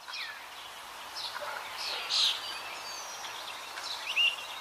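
A bird chirping: about six short, high chirps, most falling in pitch, the loudest about two seconds in and again near the end, over a faint steady hiss.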